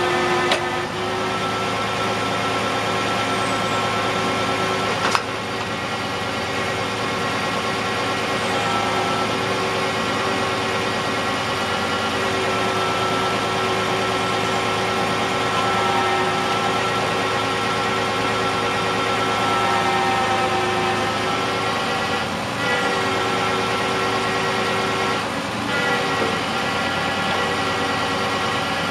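Tractor diesel engine running steadily while it powers the hydraulics of a trailer-mounted Palfinger PK3700 timber crane as the boom and grapple are swung. The engine note shifts slightly as the crane valves are worked, with a sharp clack about half a second in and another about five seconds in.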